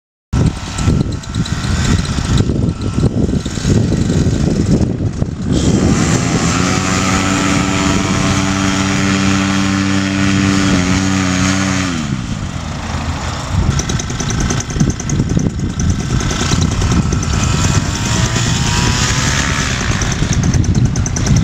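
Paramotor engine and propeller running over a rushing noise; a steady engine note about six seconds in drops in pitch around eleven to twelve seconds, and the pitch rises and falls again later.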